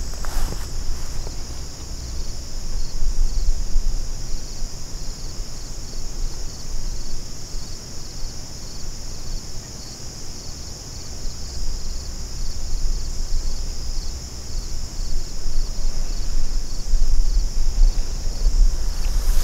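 A steady high-pitched chorus of crickets and other insects, pulsing finely and evenly, with an uneven low rumble underneath that grows louder near the end.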